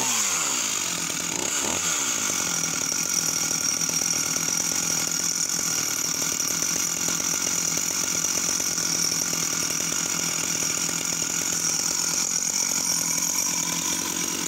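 Sachs-Dolmar 111 two-stroke chainsaw engine. Its revs fall away at the start and it is blipped once briefly about two seconds in, then it settles into a steady idle.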